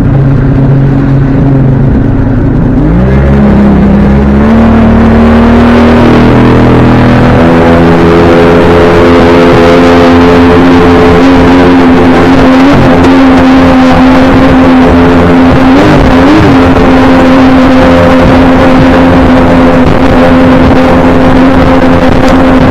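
Boat motor running under way: the pitch rises twice in the first seven or so seconds as it is throttled up, then holds steady.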